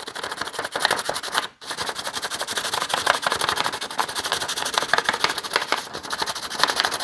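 Pencil shaded rapidly back and forth over paper laid on a metal bracket, taking a rubbing of its bolt holes: a fast, scratchy scribbling with a brief pause about one and a half seconds in.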